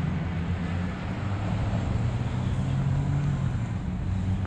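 Harley-Davidson Forty-Eight's 1200 cc Evolution V-twin idling with a steady low rumble.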